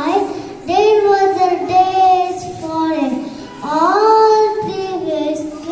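A child singing solo, two long phrases with held notes and a short break between them.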